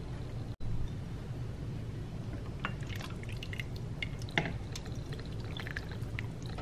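Chicken soup being ladled into a ceramic bowl: broth pouring and dripping from the ladle, with a few small splashes and taps.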